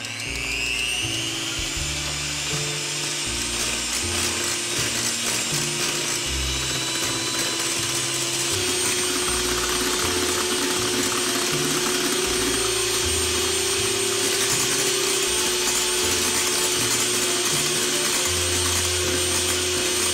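Electric hand mixer whipping warmed egg whites and sugar into meringue, speeding up with a rising whine in the first second and then running steadily at high speed.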